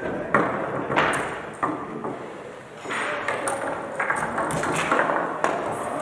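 Foosball being played: sharp, irregular knocks and clacks of the hard ball struck by the rod figures and hitting the table walls. There are two hard hits in the first second, then a quicker run of clacks from about halfway through.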